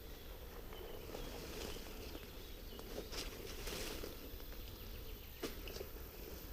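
Faint outdoor ambience with soft rustling and scattered light clicks of someone moving through undergrowth, a little louder around the middle.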